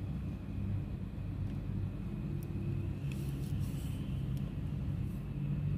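Distant city traffic: a steady low rumble of cars and trucks on the elevated toll road and the street below.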